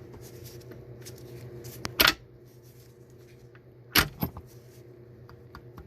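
Metal parts of a 1990s Honda manual-transmission gear selector being fitted together by hand: two sharp clacks about two seconds apart, with lighter clicks and taps around them.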